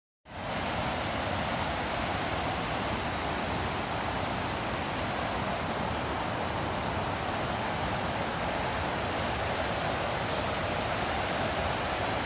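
Steady rushing of flowing water at an even, constant level.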